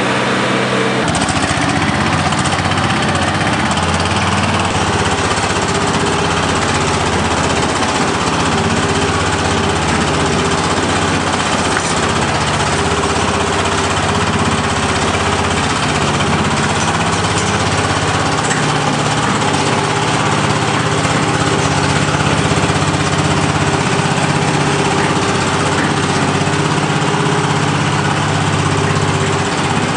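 Small engine running steadily at an even speed, a constant droning hum, as a motorized feed cart dispenses feed.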